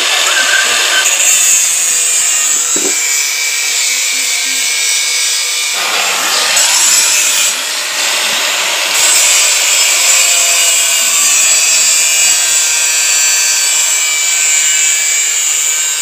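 Handheld angle grinder with a cut-off disc cutting through steel slotted angle, a loud continuous high whine and hiss of the disc in the metal. The tone shifts briefly around the middle as the disc works through the cut.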